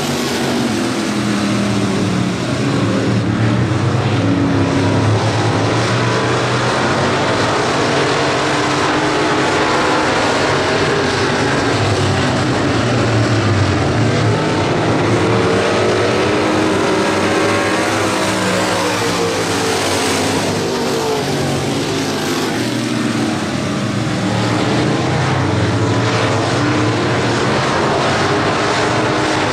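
Street stock race cars racing together around a dirt oval, a steady loud engine noise whose pitch rises and falls as the cars pass and go through the turns.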